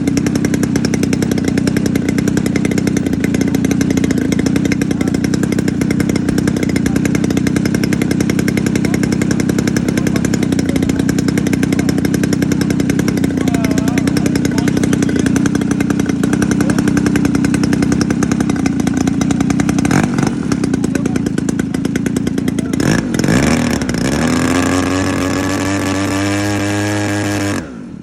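Engine of a radio-controlled model Pitts biplane running at high throttle in flight, a steady loud buzz. About 23 s in the pitch drops and then climbs back up in a long rising whine. The sound falls away sharply near the end.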